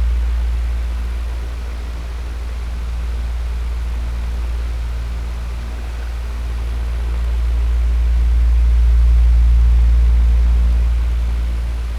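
Electric fan running steadily: a low motor hum under an even rush of air, slowly swelling and easing in loudness, louder again about eight seconds in.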